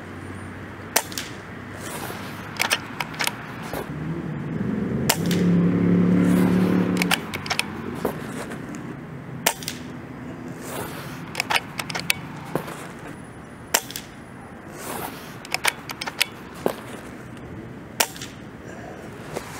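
A .25-calibre air rifle firing a string of shots with Hades pellets: sharp cracks a second or more apart, mixed with quieter clicks. A low hum swells and fades for a few seconds in the middle.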